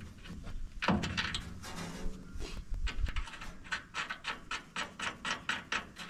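Metal handling sounds of a bolt being refitted on a New Holland Hayliner 317 baler's knotter: a knock about a second in, then a run of quick, evenly spaced clicks, about four a second, through the second half.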